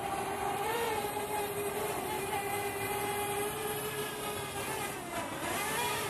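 Parrot Bebop quadcopter's propellers whining overhead as it comes down to land: a steady pitched hum that wavers slightly, dipping in pitch and rising again near the end.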